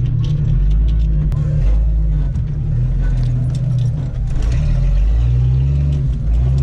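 Jeep Cherokee XJ engine running under load as it crawls up a steep dirt mound, heard from inside the cab, with scattered rattles and knocks from the bouncing body and interior.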